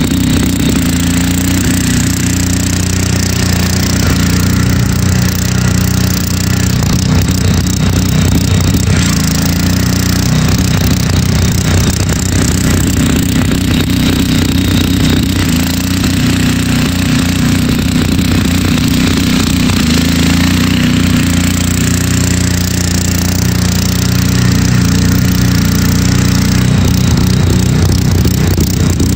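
Engine of a homemade six-wheel Craftsman garden-tractor 6x6 running steadily at a near-constant speed as the machine crawls over snowy ground.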